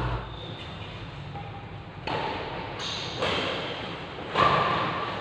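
Badminton rackets striking a shuttlecock in a rally: three sharp hits about a second apart, starting about two seconds in, each echoing in the hall.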